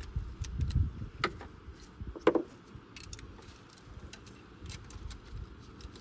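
Light metallic clicks and clinks of a compression tester's adapter and hose being handled and fitted into the glow plug hole of a BMW N47 diesel, with one sharper clink about two seconds in.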